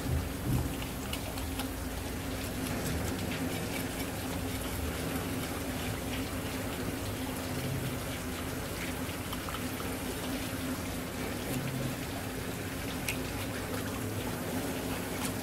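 Steady running water spraying from a hose onto a large sea bass and a plastic cutting board, with faint scattered clicks of a knife working at the fish and a steady low hum underneath.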